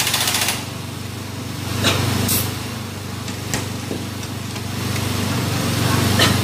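Pneumatic impact wrench running in a short burst on the clutch hub nut of a Kawasaki KLX engine, stopping about half a second in. After that comes a steady low engine-like hum with a few light metallic clicks.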